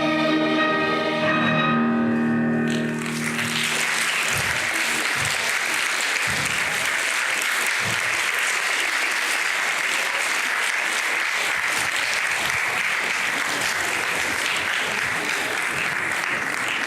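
Singing with music holds a final chord and stops about three seconds in, then an audience breaks into steady applause.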